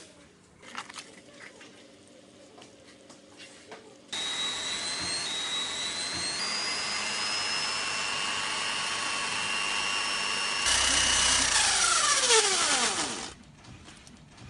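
Electric hand drill running, spinning a homemade cotton-candy spinner. It starts suddenly about four seconds in, steps up to a louder, higher whine near eleven seconds, then is let go and winds down with a falling whine before stopping. A few light clicks and knocks come before it starts.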